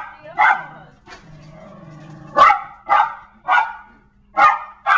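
A dog barking excitedly at a clothes dryer. There is one bark, then a lull of about a second and a half, then five sharp barks in quick succession, roughly half a second to a second apart.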